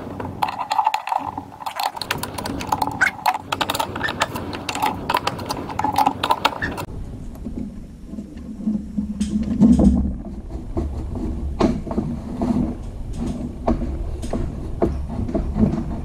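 Steel screwdrivers clicking and scraping in the holes of a garage door torsion spring's winding cone as the spring's tension is walked back by hand. After about seven seconds the rapid clicking thins to occasional knocks over a low rumble.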